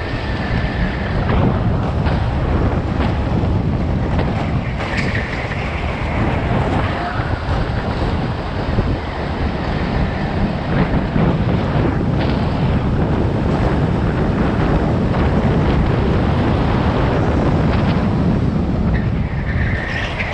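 Go-kart driven at racing speed on an indoor track, heard from on board: steady drive noise and tyre rumble mixed with heavy wind on the microphone, with brief high squeals in a few corners.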